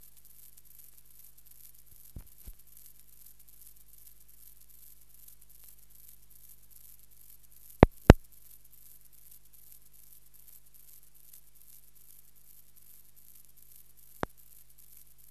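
Steady hiss and low hum of an old optical film soundtrack with no live sound on it. A few sharp clicks break through: two faint ones about two seconds in, two loud ones close together about eight seconds in, and one near the end.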